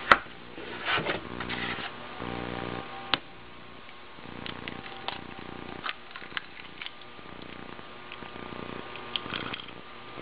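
Sharp taps and clicks against a glass mixing bowl as an egg is taken from its carton and cracked into the bowl, with a low hum during the first few seconds.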